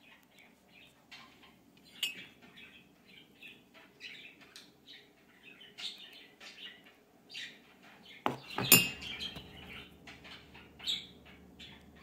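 Small birds chirping: many short, high chirps that keep coming. A brief cluster of sharp knocks about eight seconds in is the loudest sound.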